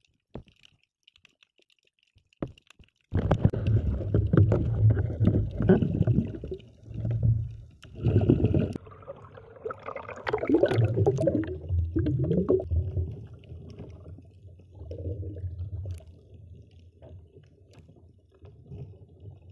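Water sloshing and gurgling close to the microphone, with rumbling handling knocks, as the camera is brought up out of the water. Nearly silent apart from a few faint clicks at first; the sloshing starts suddenly about three seconds in and eases off in the later part.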